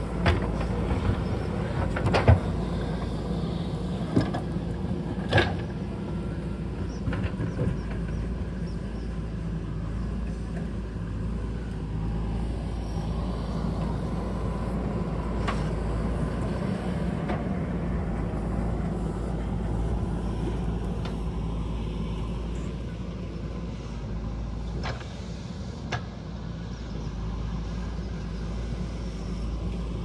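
JCB backhoe loader's diesel engine running steadily under digging work, with a few sharp knocks, most of them in the first six seconds.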